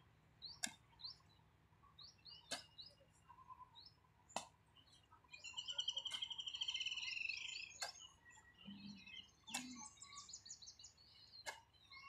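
Birds chirping, with one long rapid trill in the middle, while a hoe strikes dry soil with a sharp tap about every two seconds.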